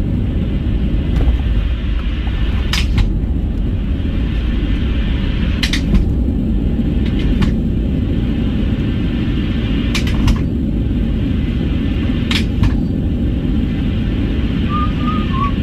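Steady low rumble inside a Boeing 737-800 cabin after landing. Sharp crackles come every two to three seconds, which the uploader calls static noise from the cabin PA where boarding music would play. A brief warbling tone sounds near the end.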